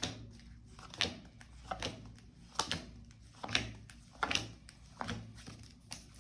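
Tarot cards being handled and laid down on a table: a run of short taps and slaps, about one a second.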